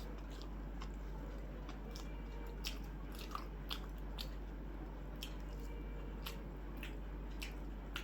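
A person eating close to the microphone: crunchy bites and chewing, with sharp crackly clicks every half second to a second.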